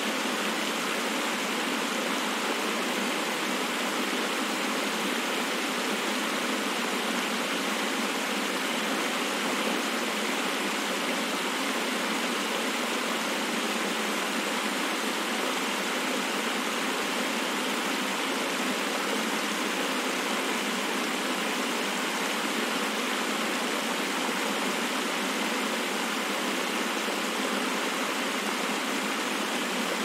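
Pond fountain spraying a jet and a ring of droplets that fall back onto the water: a steady, even splashing hiss that does not change.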